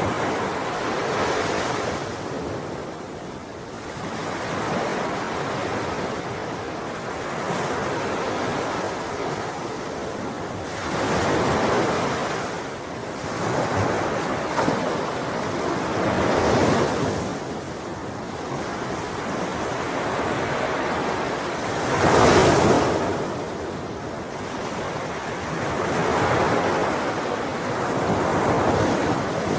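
Ocean waves breaking on a shore, a steady wash of surf that swells every few seconds as each wave comes in, with one louder break about two thirds of the way through. Some wind rushes across the microphone.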